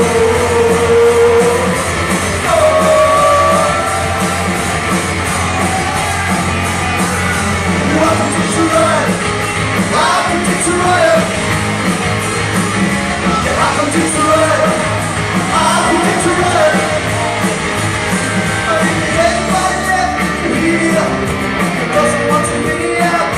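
Live rock covers band playing a song, with a lead vocal sung and partly shouted over bass, guitars and drums.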